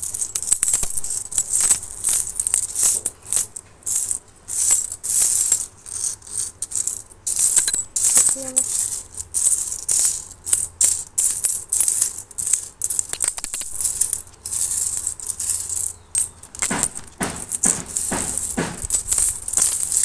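A large heap of metal coins being raked and spread by hand across a hard surface, jingling and clinking in irregular surges, with a few heavier clatters near the end.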